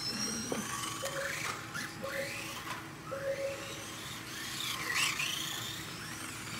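Small electric motors of 1/28-scale Kyosho Mini-Z RC cars whining, the pitch rising and falling as the cars speed up and slow down, with a strong sweep as one passes close about five seconds in. Short mid-pitched beeps sound several times through it.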